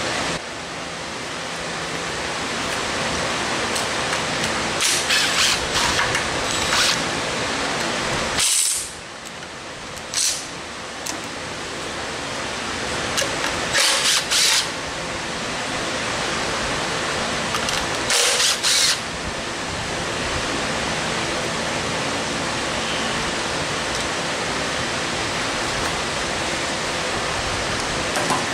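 Steady hissing shop background noise, broken by several short, sharp bursts of tool noise, each under a second, as the oil pan bolts are being taken out of a Ford 351 Windsor V8.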